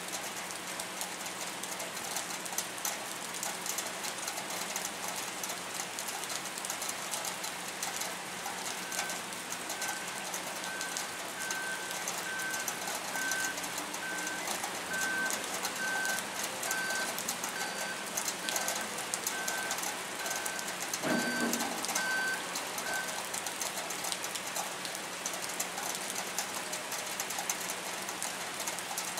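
Steady rain falling on the pier, with a vehicle's reversing beeper repeating about once a second from about a third of the way in to about three quarters through. A single thump comes near the end of the beeping.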